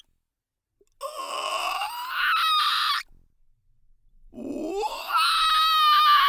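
Monster creature vocal sound effect: two groaning calls, each about two seconds long and rising in pitch, with a short pause between them.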